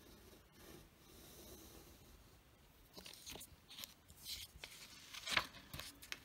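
Rollerball pen drawing lines on a paper worksheet, faint at first. From about halfway there are scratchy rustles of paper being handled and slid across the table, the loudest a little after five seconds in.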